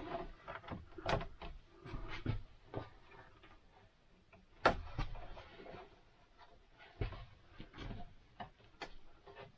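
Scattered knocks and clicks of parts being handled and pressed into place while fitting a motorhome air-conditioning duct assembly to the ceiling, the sharpest knock about halfway through.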